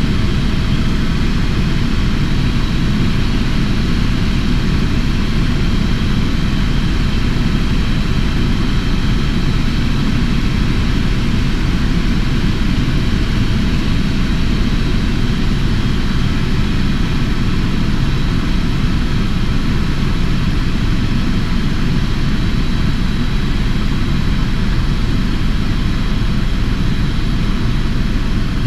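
Helicopter in steady flight: continuous engine and rotor noise, a heavy low rumble with a faint steady high whine above it.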